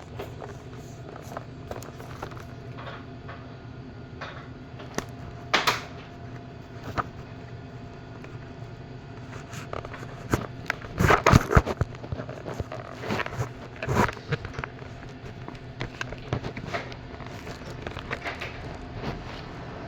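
Scattered clicks and knocks of a tool set and its packaging being handled, busiest about halfway through, over a steady low hum.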